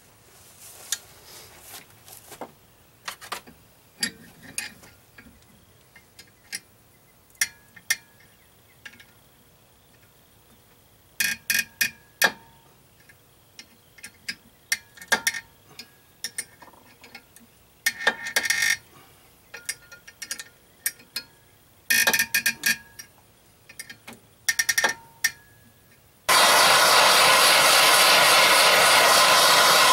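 Irregular sharp metallic clicks and ticks, some in quick clusters, as a puller is tightened on a stuck bearing housing in an Evinrude 9.9 outboard's lower unit gearcase and the seized part creeps loose. Near the end a handheld gas torch comes on suddenly with a loud steady hiss, heating the gearcase to free the part.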